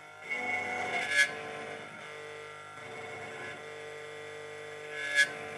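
Miracle automatic key cutting machine milling a car key blade: the cutter motor runs with a steady whine as the cutter works along the blade a little at a time. There are two sharp, louder scrapes about a second in and near the end.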